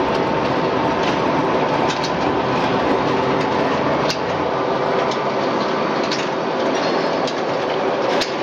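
French fries production line running: electric motors and stainless steel mesh-belt conveyors carrying cut fries make a steady mechanical din, with a faint hum and scattered light clicks and rattles.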